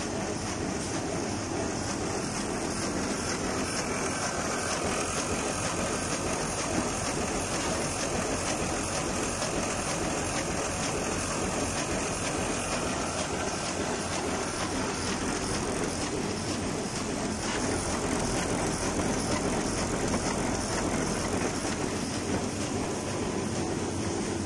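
Fully automatic high-speed book sewing machine running, with a steady, dense mechanical clatter.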